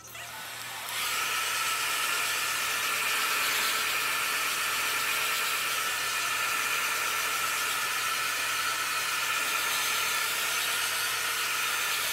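Handheld hair dryer blowing, rising to a steady rush of air about a second in, with a faint steady whine under the hiss.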